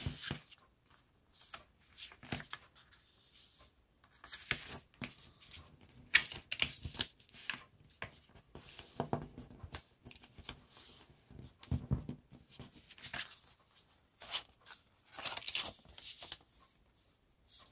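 A sheet of origami paper being folded and creased by hand: irregular rustling and crinkling as the paper is turned and bent, with fingers swishing along the folds to press them flat.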